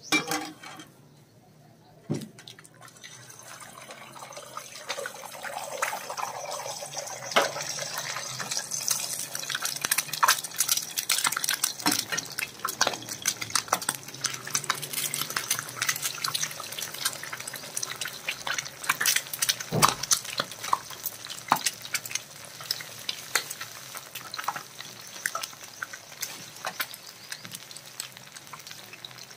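Eggs frying in hot cooking oil in an aluminium frying pan: a sharp tap about two seconds in as an egg goes in, then a steady crackling sizzle, with another sharp tap about two-thirds of the way through.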